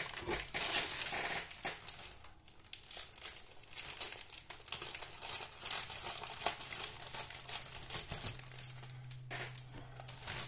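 Clear plastic bag around plastic model-kit sprues crinkling and rustling as it is opened and the sprues are pulled out of it.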